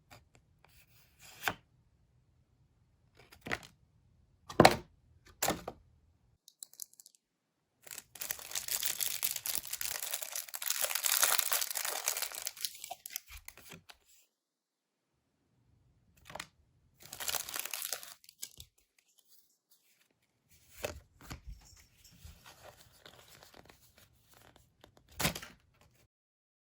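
Packaging of a Pokémon card box being torn open and crinkled: a few sharp handling clicks, then a long tearing rustle several seconds in, and more rustling and crinkling with a sharp tap near the end.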